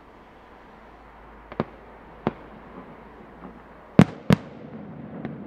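Fireworks shells bursting: several sharp bangs at uneven intervals, the two loudest close together about four seconds in, over a faint steady background.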